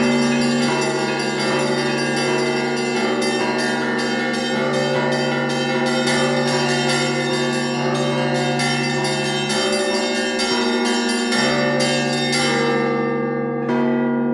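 Church bells ringing a peal: rapid, overlapping strikes on the smaller bells over the long, steady hum of the larger ones. Near the end the small bells stop and the big bells ring on, then a fresh strike comes in.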